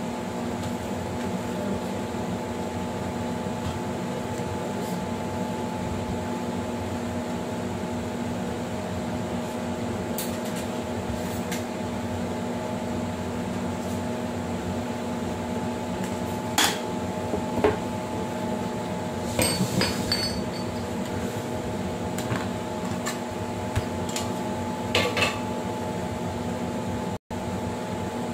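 Steady machine hum, like a fan or air conditioner running, with a few short light knocks and clinks of kitchen handling around two-thirds of the way through and again near the end.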